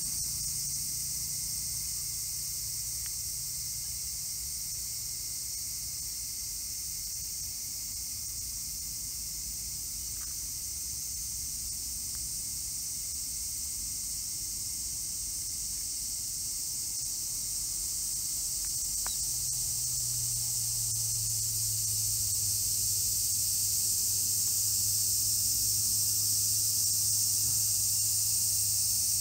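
Steady, high-pitched insect chorus: a continuous buzzing hiss of crickets or cicadas in the waterside grass and trees.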